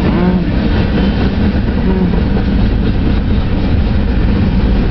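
Freight train boxcars rolling past at close range: a loud, steady rumble of steel wheels on rail.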